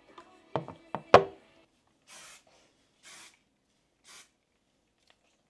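A few sharp knocks about a second in, then three short hisses of an aerosol hairspray can being sprayed onto hair, about a second apart.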